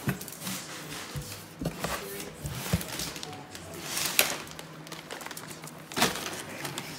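A beagle rummaging in a cardboard box of treat bags: irregular rustling and crinkling of the packaging with knocks against the cardboard. The sharpest knocks come about four seconds in and about six seconds in.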